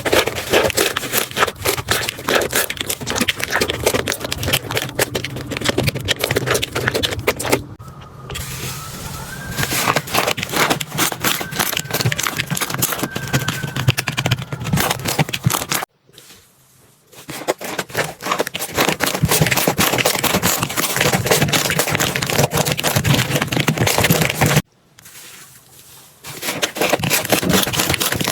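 Slime being squeezed and pressed by hand, giving a dense, rapid crackling and popping. The sound breaks off abruptly three times as one short clip cuts to the next.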